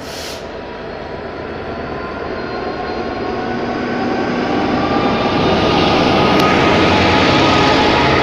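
GB Railfreight Class 66 diesel locomotive 66702, its EMD two-stroke V12 engine running as it approaches and passes close by at the head of a coal hopper train. The engine grows steadily louder over about five seconds, then holds loud as the locomotive and the first wagons go past.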